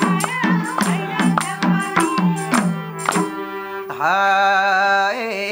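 Nepali lok dohori folk music: a madal drum beats a quick, even rhythm over harmonium, with a tambourine jingling. About three seconds in the drumming stops, and a man's voice slides up into a long held sung note.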